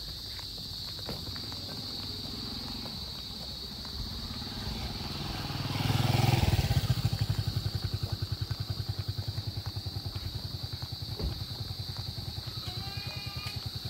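Small motorcycle engine running close by with an even, rapid low beat, swelling loudest about six seconds in and then running on steadily.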